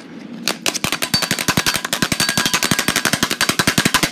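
A fast, even rattle of sharp clicks, like automatic gunfire, thinning out for about half a second at the start.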